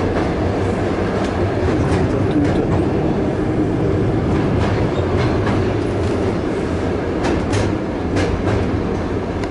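Passenger train carriage running on the rails, heard from inside: a steady rumbling roar with scattered clicks and clacks of the wheels over the track.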